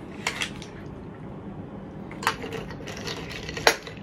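Spoons and forks clinking against glass serving bowls and plates as food is scooped out, a few sharp separate clinks, the loudest near the end.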